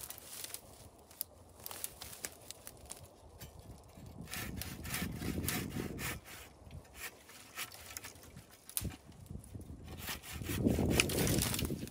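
Hand saw cutting through a live tree branch overhead, in rasping strokes. The sawing is densest about four seconds in and again near the end, with twigs and leaves rustling and snapping.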